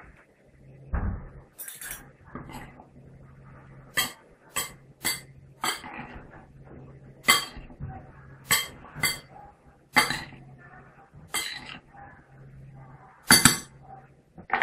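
A metal spoon and fork clinking irregularly against a glass salad bowl, about a dozen sharp clinks, while a chickpea salad is tossed.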